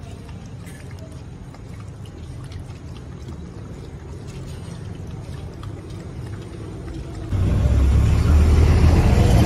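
Low, steady rumble of street traffic, jumping suddenly much louder about seven seconds in.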